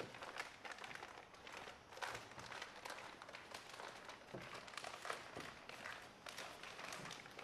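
Faint, irregular crinkling and rustling of plastic shrink-wrap film as it is pulled and tucked under the boat's perimeter band.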